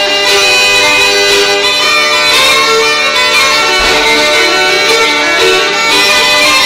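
Fiddle and uilleann pipes playing an Irish traditional dance tune together.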